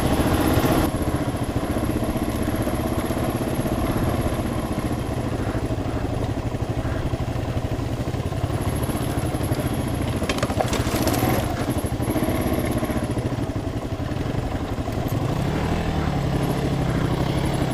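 Dual-sport motorcycle's single-cylinder engine running at a steady pace, its note shifting up and down a little with the throttle. There is a short clatter of knocks about ten seconds in.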